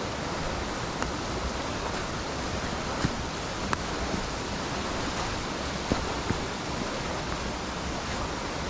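Steady rush of water falling over the Wharnley Burn waterfall, with a few short sharp clicks or knocks on top.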